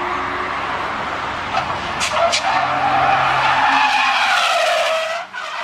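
Sports car driven hard through a track corner, its engine running loud under sustained tyre skidding, with two sharp cracks about two seconds in. The sound drops away suddenly shortly before the end.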